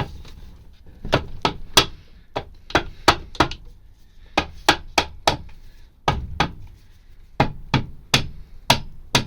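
Rubber mallet tapping on the aluminium rear clutch cover of a Honda ST1100 engine to work the stuck cover loose. Sharp repeated knocks come about three a second, in short runs with brief pauses between them.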